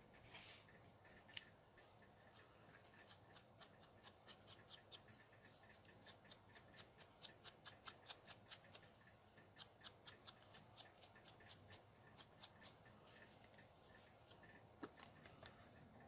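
A small sponge dabbing ink onto the edges of a paper strip and onto the ink pad: a quick run of faint, crisp taps, about two to three a second, that dies away near the end.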